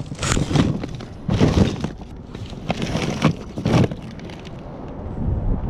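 Kitchen items being handled and tossed out, clattering and knocking: a string of sharp knocks through the first four seconds, then quieter rustling.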